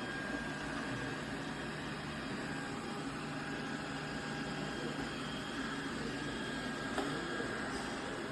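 iRobot Roomba robot vacuum running: a steady whirring hum from its motors with a faint high whine, and a small click about seven seconds in.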